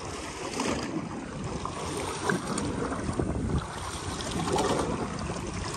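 Wind buffeting the microphone over choppy water lapping against a boat's hull.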